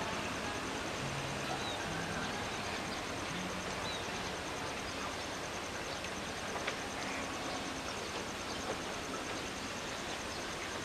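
Steady outdoor background noise, an even rush, with a faint high-pitched pulsing tone running through it.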